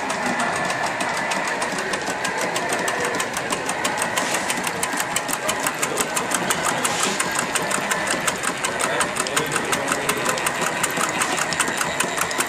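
Small model live steam engines running on a display table: a steady, rapid mechanical clatter and ticking of pistons and valve gear.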